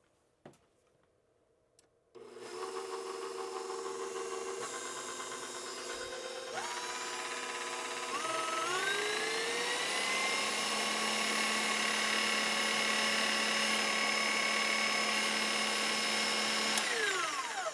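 KitchenAid Pro 600 stand mixer running after a gearbox rebuild with new gears and fresh grease: the motor and gears start with a whine about two seconds in and step up in pitch several times as the speed is raised. It then runs steady and winds down in pitch when switched off near the end; the owner judges the sound about right for this powerful model.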